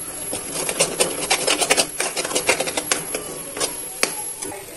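Metal spoon scraping and stirring thick spiced dal masala in a metal kadhai, with many quick, irregular rasping scrapes and knocks against the pan as the dal fries in oil.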